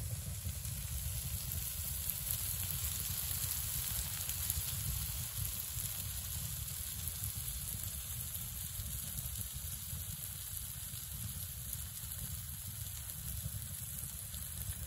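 Pancake batter sizzling in a hot pan, a steady hiss over a low rumble.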